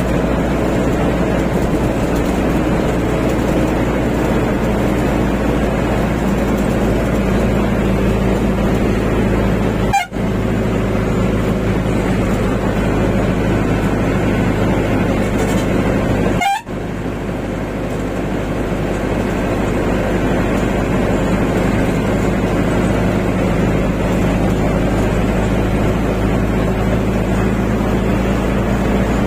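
Maxi van's engine and tyre noise heard from inside the cab while driving at highway speed, a steady low running sound. The sound drops out briefly twice, about ten and sixteen seconds in.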